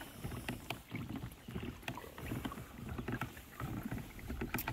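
Hobie Compass pedal kayak under way on calm water: water lapping and slapping against the hull in uneven low pulses, with a few light clicks, the sharpest near the end.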